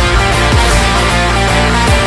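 Loud background music with a heavy drum beat.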